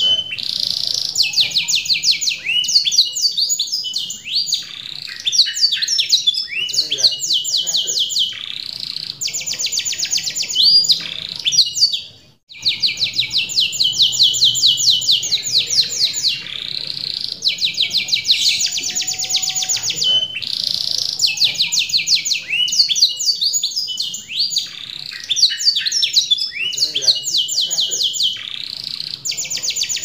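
Domestic canary in full song: a long, continuous run of rapid high trills and rolls with quick sweeping notes. The song breaks off briefly about twelve seconds in, then carries on.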